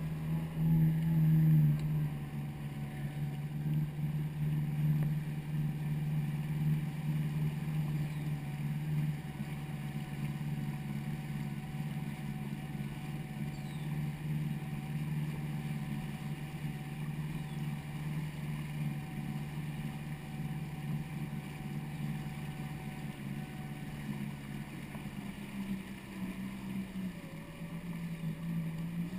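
Jet ski engine running steadily under way, with water and wind noise. It is a little louder in the first couple of seconds, and the pitch shifts slightly near the end.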